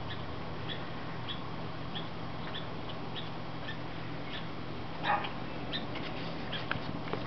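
Raccoon lapping water from a shallow barrel lid: a soft, wet click about every two-thirds of a second, with one louder lap about five seconds in.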